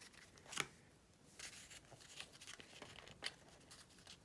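Faint rustling and crinkling of a sheet of A4 paper being folded over by hand, with a sharp crisp snap of the paper about half a second in and another near the end.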